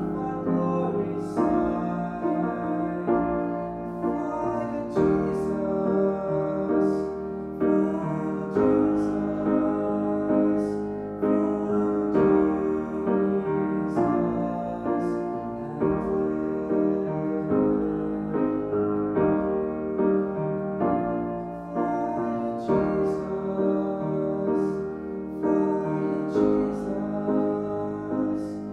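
A man singing a song while accompanying himself on a grand piano.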